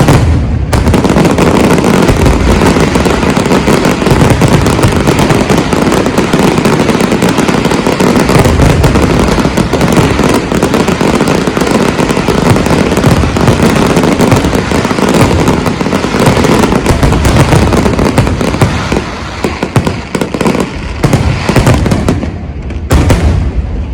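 A fireworks display in a dense, continuous barrage of overlapping bangs and crackling bursts. The bangs thin out and become more separate in the last few seconds.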